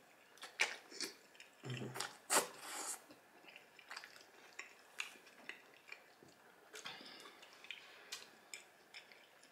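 Close-miked eating of baked spaghetti: wet chewing and mouth sounds as noodles are sucked in, with scattered light clicks of a metal fork against the glass baking dish.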